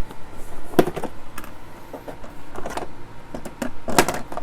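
Irregular clicks and clacks of small plastic and metal parts being handled and pulled off a multimeter's circuit board, with the sharpest knocks about a second in and near the end.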